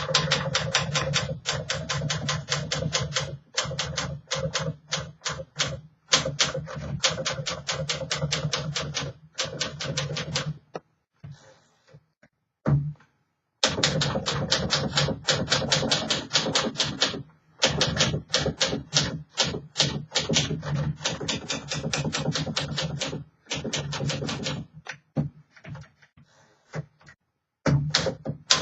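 A 1951 Smith Corona Silent manual typewriter being typed on: quick runs of keystrokes, about seven a second, with the typebars striking the platen. There are two short pauses and a stretch of scattered lighter strokes.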